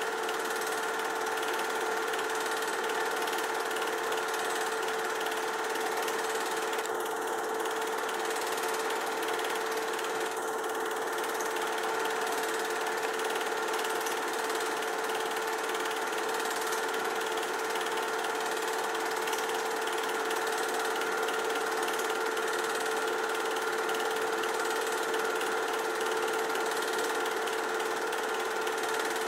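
Film projector running steadily: a fast, even clatter from the film-advance mechanism over a constant hum.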